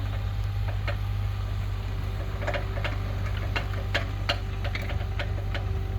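Komatsu PC-30 mini excavator's diesel engine running at a steady pitch, with irregular sharp clicks and knocks over it.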